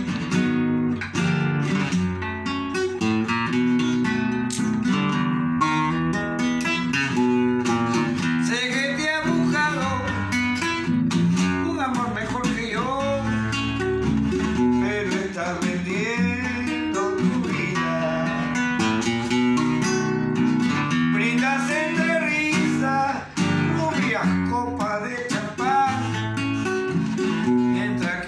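Nylon-string classical guitar playing a Peruvian vals, plucked and strummed, with a man's voice singing over it from about nine seconds in.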